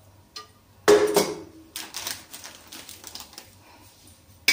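Steel kitchen vessels and utensils being handled: a sharp metallic clank about a second in, followed by a run of lighter clicks and knocks.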